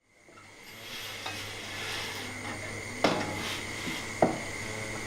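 Ambient sound fading in: a steady hum with a high whine, a light busy clatter, and two sharp clanks of dishes or pots about three and four seconds in.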